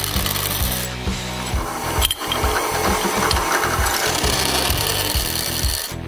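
Drill press running while a twist bit drills through a steel bracket, a steady motor hum under the grinding of the bit cutting metal, with a brief lull about two seconds in.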